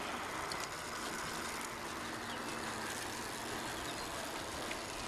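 Steady hum of a motor vehicle's engine running, over an even street noise.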